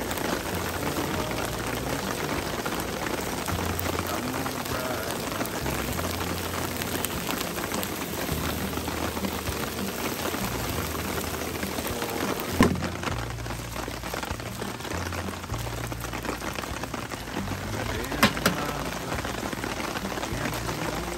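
Steady heavy rain coming down. Two sharp knocks cut through it, one about twelve seconds in and a quick double one around eighteen seconds.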